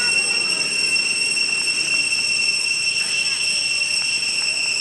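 Steady, high-pitched drone of tropical forest insects.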